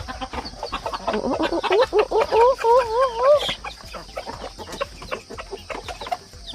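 A flock of chickens and roosters clucking and calling in short bursts, with one long wavering call about two to three seconds in.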